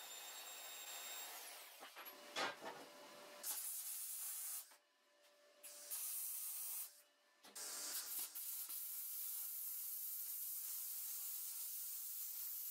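MIG welder arcing with a steady crackling hiss, in several runs broken by two short silences about five and seven seconds in. At the start, the tail of a portable band saw cutting steel pipe, with a thin high whine.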